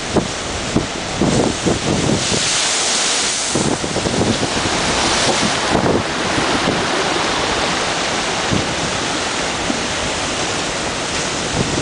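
Storm waves breaking against a harbour sea wall and seawater rushing across the flooded quay, with strong wind buffeting the microphone. A loud hiss of surf and spray swells about two seconds in and again near six seconds.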